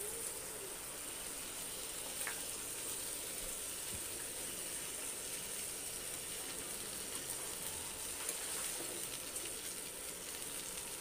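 Katla fish pieces and masala-coated potatoes sizzling steadily in oil in a non-stick pan, with a few light taps of a spatula.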